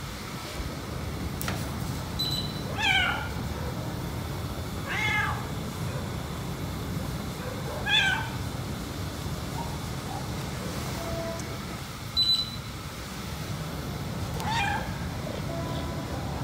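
A domestic cat meowing four times, short plaintive meows spread a few seconds apart. Two brief high chirps and a steady low rumble lie underneath.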